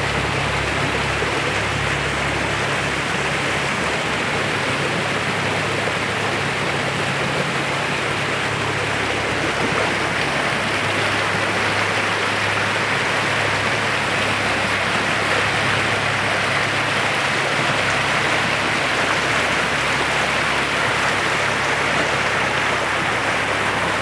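Rain-swollen stream rushing over rocks in white-water rapids: a steady, unbroken roar of churning water.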